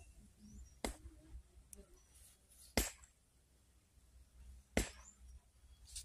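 Three sharp clicks or knocks, about two seconds apart, over a faint low rumble.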